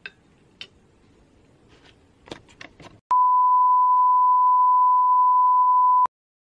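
A few faint clicks over quiet room tone. Then, about three seconds in, a loud, steady, single-pitched electronic beep tone holds for about three seconds and cuts off suddenly.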